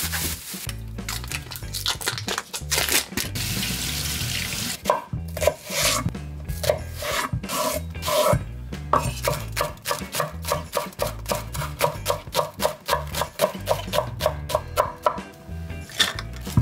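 Kitchen work sounds: a continuous rubbing, scraping noise, then from about five seconds in rapid, evenly spaced strokes, about three to four a second, over background music.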